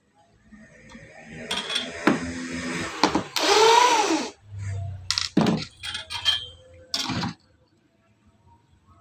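Tools and hardware being handled: clattering and clinks, with a brief whir that rises and then falls in pitch about halfway through, followed by several sharp knocks.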